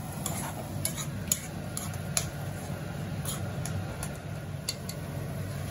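A spoon clicking and scraping against a metal kadhai as a thick tomato masala is stirred, in irregular light taps, over a steady low hum.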